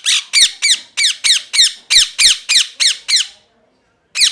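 Ringneck parrot giving a rapid series of shrill calls, about four a second, each one dropping in pitch. The run stops about three seconds in, and another begins right at the end.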